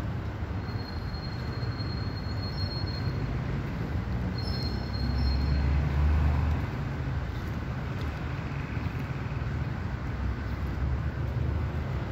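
Steady low outdoor rumble, of the kind city traffic or wind makes, swelling briefly about five seconds in, with two faint high whistles in the first half.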